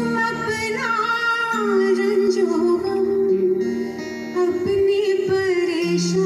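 Live music: a woman singing a wavering melody into a microphone over sustained keyboard chords and guitar accompaniment.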